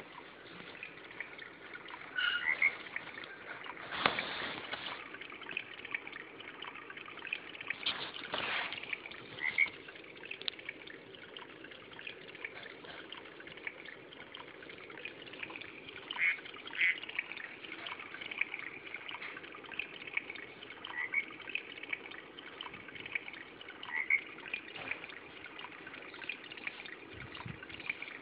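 Fisher-Price projection swing playing its nature-sounds track through its small built-in speaker: running water with scattered short chirps, and two louder swells about four and eight seconds in.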